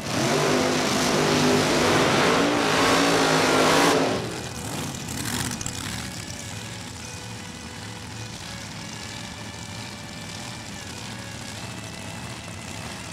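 Top Dragster engines revving hard through a burnout for about four seconds, very loud, then dropping back to a steady idle as the cars pull up to the starting line.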